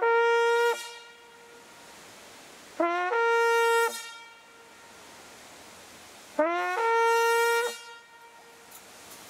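Hunting horn blown in three blasts of about a second each. Each starts on a lower note and steps up to a held higher note. The horn is sounded to call the hounds back in.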